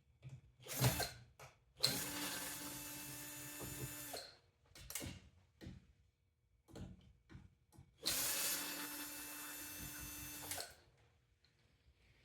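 Cordless power drill or electric screwdriver running in two spells of about two and a half seconds each, with short clicks and knocks of handling in between, typical of backing screws out of a microwave's casing.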